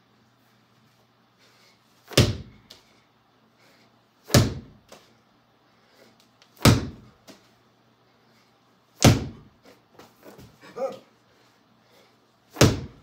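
A medicine ball slammed down onto a folded vinyl-covered foam gym mat five times, a heavy thud every two to three seconds.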